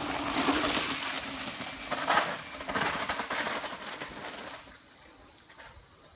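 Mountain bike passing close on a dry dirt track: tyres hissing and crunching over loose dirt, loudest as it goes by and fading away about four and a half seconds in.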